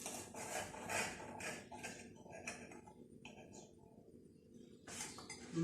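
A person biting and chewing crunchy garlic bread: a series of short crunches about twice a second, the loudest shortly before the end.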